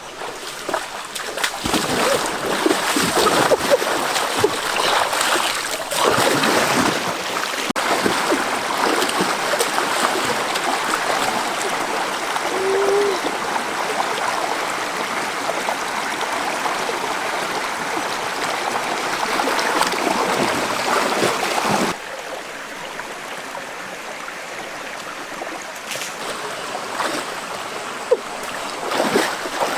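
Water splashing and running in a stream. It drops suddenly to quieter flowing water about two-thirds of the way through, with a few more splashes near the end.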